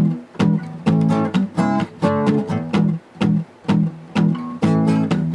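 Guitar strumming chords in a steady rhythm: an instrumental stretch of a song between sung lines.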